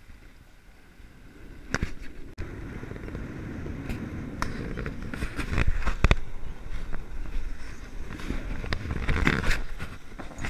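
Wind buffeting the camera microphone and water rushing past a sailboat's hull under way, with scattered sharp knocks and clicks. It gets louder from about two seconds in.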